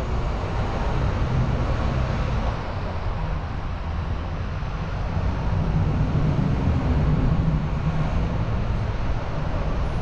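Open-top double-decker tour bus on the move: a steady low rumble of engine and road noise, easing a little a few seconds in and building again after.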